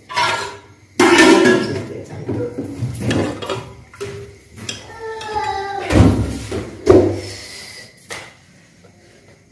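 Cooking pots and utensils clattering and knocking, with sudden heavy hits about a second in and again around six and seven seconds. Indistinct voices talk in between.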